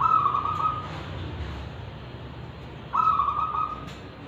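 Zebra dove (perkutut) cooing: two loud phrases at an even pitch, one at the start and another about three seconds in, each nearly a second long. This is a local wild-type bird whose voice the keeper grades as 'kristal'.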